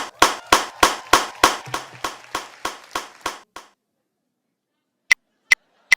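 A lone person clapping slowly and evenly, about a dozen sharp claps a little over three a second, stopping about three and a half seconds in. Then near silence, broken by three short high-pitched clicks near the end.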